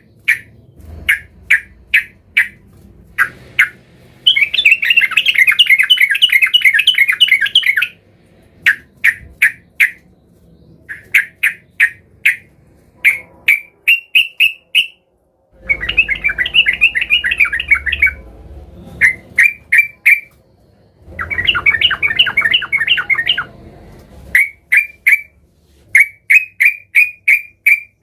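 Yellow-vented bulbul calling agitatedly, as a caged male does when seeking a rival. It gives short sharp chirps in quick runs of three to five, broken three times by long bouts of rapid harsh chattering.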